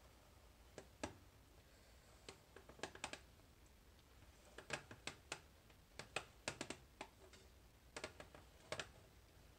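Faint, irregular sharp clicks and taps, some in quick clusters of two to four, over near silence.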